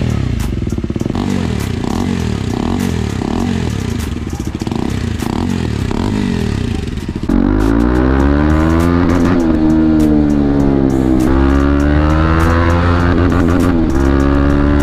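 KTM 250 Adventure's single-cylinder engine through a loud aftermarket full-system exhaust, first revved in quick repeated blips at a standstill. About seven seconds in it changes to riding acceleration, the pitch climbing and dropping back at each gear change.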